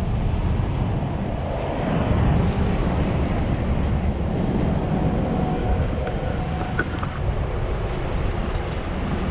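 Steady wind rumble on the microphone and road noise from an SUV towing a kayak trailer, picked up from outside the car. The sound shifts slightly at cuts about two and seven seconds in.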